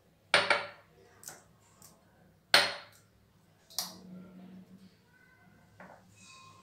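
About five sharp clacks and knocks as a stainless-steel blender jar and plastic tumblers are handled and set down on a kitchen counter. The loudest knock comes about two and a half seconds in.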